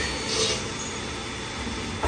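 Scotchman automatic circular cold saw running steadily with a low rumble, with a short hiss about half a second in.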